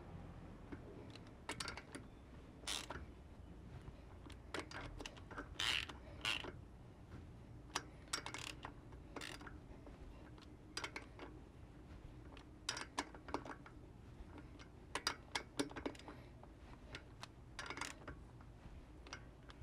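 Hand socket ratchet on an extension clicking in short, irregular bursts as the nuts holding a freewheeling hub body to a wheel hub are run down and snugged up by hand.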